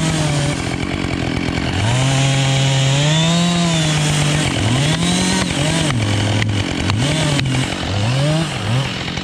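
Husqvarna 572 XPG two-stroke chainsaw, still new and not fully run in, held at full throttle for a couple of seconds and then revved up and down in four quick blips. A few sharp cracks sound in the middle of the revving.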